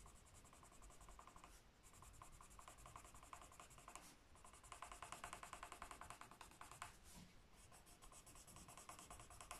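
Green coloured pencil shading on squared notebook paper: faint, rapid back-and-forth scratching strokes in several runs, with short pauses between them.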